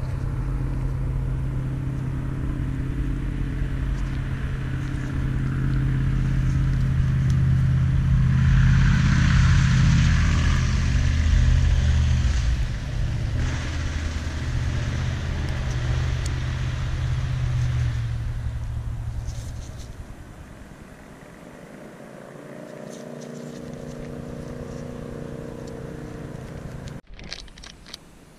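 A motor vehicle's engine running steadily, swelling with a hiss about a third of the way in and fading away about two-thirds through, followed by a fainter, higher-pitched engine hum. Near the end it cuts off and a plastic bag crinkles.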